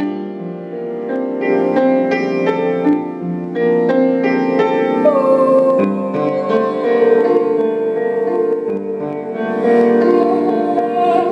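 Solo piano playing a slow, Japanese-tinged melody with chords. From about five seconds in, a woman's voice slides up into a long held note over the piano.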